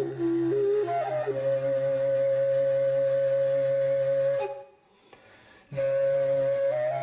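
Kazakh sybyzgy flute playing a slow melody over a steady low drone: a few short notes, then a long held note. The sound breaks off for about a second before the melody resumes and steps up in pitch.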